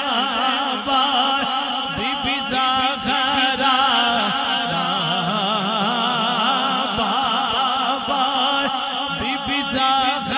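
A man chanting a devotional Punjabi naat in long, wavering held notes with heavy vibrato, amplified through a PA loudspeaker system.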